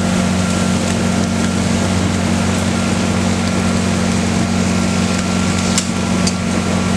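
Concrete pump truck's diesel engine running steadily at a constant speed, a loud even hum, with two short clicks about six seconds in.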